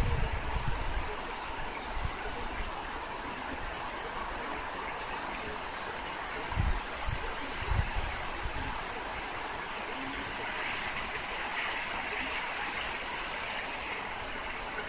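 Typhoon wind and rain heard through a slightly opened apartment window: a steady rushing noise, with gusts hitting the microphone in low thumps near the start and again around seven seconds in.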